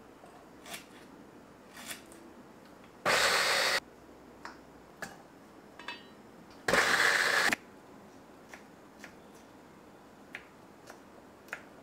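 Two short bursts of whirring from a Wonderchef manual pull-cord chopper, its blades spinning through garlic cloves and green chilli. Each burst lasts under a second and the second comes about three and a half seconds after the first. Faint clicks and taps fall in between.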